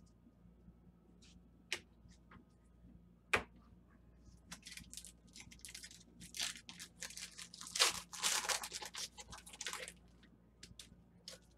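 Foil wrapper of a 2014 Strata football card pack being torn open and crinkled. Two sharp clicks come first, then a few seconds of crackling tearing, loudest about eight seconds in.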